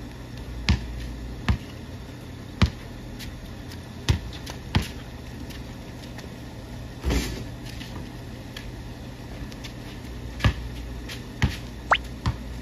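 Basketball bouncing on a concrete driveway: single sharp, irregularly spaced dribbles and bounces, with a longer, ringing hit about seven seconds in, just after a shot.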